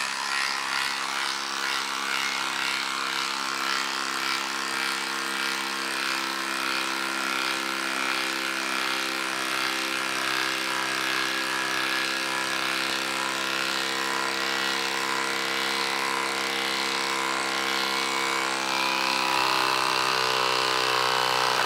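DeWalt 12V Xtreme impact driver hammering steadily as it drives a 6-inch lag screw down into the end grain of a log. A slightly rising whine joins in over the last couple of seconds as the lag draws tight.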